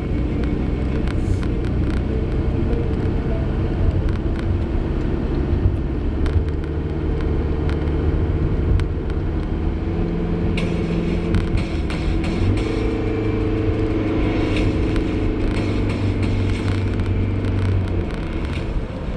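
Car driving along a road: a steady rumble of engine and tyres.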